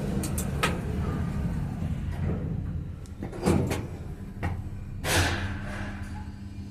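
Schindler machine-room-less lift in motion: a steady low hum from the car, broken by a few sharp clicks early on and two louder thuds with a short rush of noise about three and a half and five seconds in.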